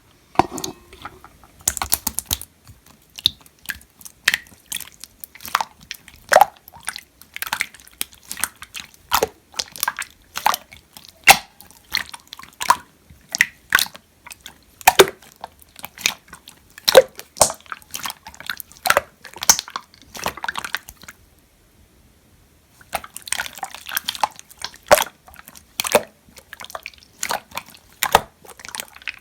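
Clear slime being pressed, poked and stretched by hand, giving irregular sticky clicks and small air-bubble pops, some with a short dropping pitch. A brief pause about three quarters of the way through.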